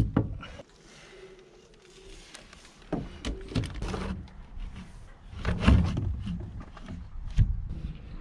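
Knocks, thumps and clatter of someone climbing out through a deck hatch onto a steel yacht's coach roof and shutting the hatch lid, the loudest clatter about two thirds of the way through and a sharp knock near the end, over a steady low rumble of wind on the microphone.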